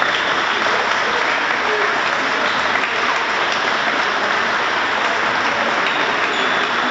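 Steady applause: many hands clapping together without a break, the handball players among them.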